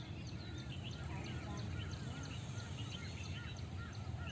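Many birds chirping in quick, overlapping calls over a steady low background rumble.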